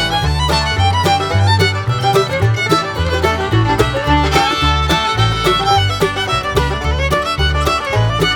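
Lively instrumental background music led by a fiddle, over a bass line that steps from note to note.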